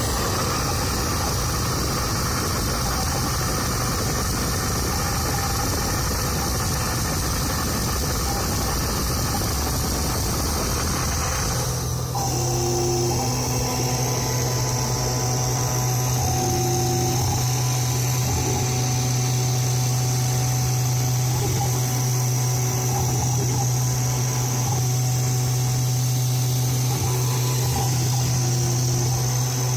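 CNC 3040 router milling a PCB with a V-bit: the spindle motor runs steadily while the stepper motors drive the axes. About twelve seconds in the sound changes from a broad rough rumble to a steadier hum with a high whine.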